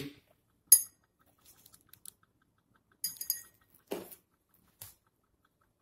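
A few light clinks and taps of laboratory glassware being handled. The sharpest comes about three-quarters of a second in, with a brief high ring. More ringing clinks follow around three seconds in, then a duller knock near four seconds and a small click just after.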